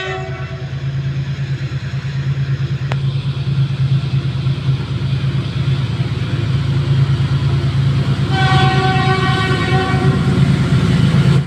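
Diesel locomotive approaching with its engine throbbing steadily and growing louder, then sounding its horn in one blast of about two seconds near the end.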